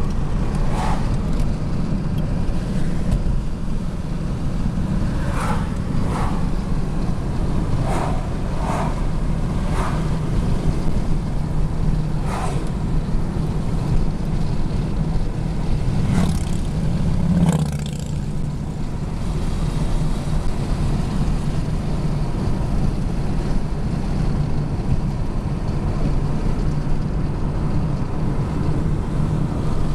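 Car cabin noise while driving: a steady low rumble of engine and tyres on the road, with short sharper sounds now and then during the first half.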